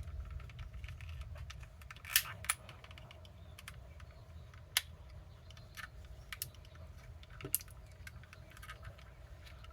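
Small scattered clicks and taps of plastic parts of a car's master window switch being handled and fitted. The loudest are a pair of clicks about two seconds in, and single clicks near five and seven and a half seconds.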